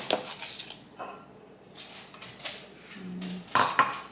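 A few sharp clinks and taps of a plastic powder scoop against a drinking glass and the supplement tub while pre-workout powder is being scooped, the loudest pair near the end.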